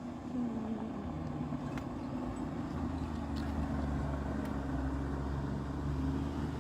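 Safari vehicle's engine running as it approaches, a steady low hum that grows stronger from about three seconds in.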